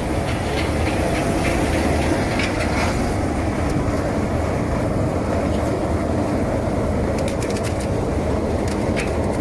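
Brush roller onion peeling machine running steadily, its rollers turning the onions over with a dense rattling rumble and a low hum underneath. A few sharp knocks come near the end as peeled onions drop from the chute into the steel mesh basket.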